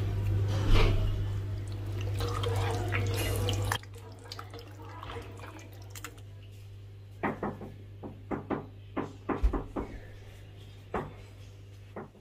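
A steady rushing noise with a low hum for about the first four seconds, which cuts off abruptly. Then a run of short clicks and knocks, as of packets and plastic being handled on a kitchen counter.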